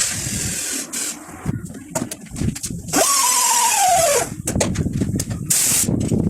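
Tire-shop air tools: short blasts of compressed-air hiss with sharp metal clicks in between. The longest blast, about three seconds in, carries a whine that falls in pitch as the tool spins down.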